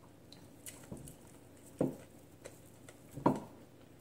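Close-up eating sounds from someone eating with their fingers: light clicks and patter of fingers picking food off a plate, and mouth sounds of chewing and lip smacking, two of them louder, a little under two seconds in and again about three and a quarter seconds in.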